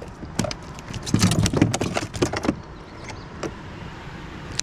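Gear handling noise while a hooked trout is being landed: a dense flurry of clicks and rattles for about two and a half seconds, then quieter, with a couple of single clicks near the end.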